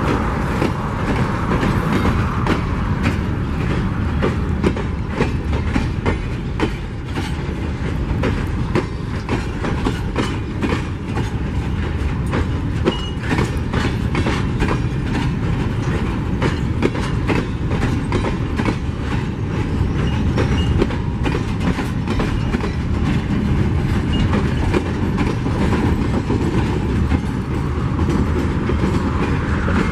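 A long string of empty steel mineral hopper wagons rolling past close by: a steady rumble from the wheels, with rapid clicking and clatter as they cross the rail joints.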